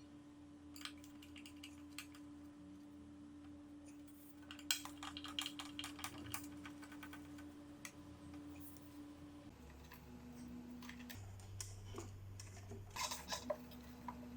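Light, irregular clicks and taps of a screwdriver and small screws being handled while a small speaker cabinet is unscrewed and opened, over a faint steady hum.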